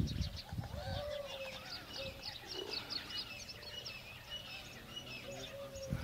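Several wild birds singing and chirping together, with a quick run of short repeated notes in the middle and a lower held note near the start and again near the end. A few low bumps come right at the start.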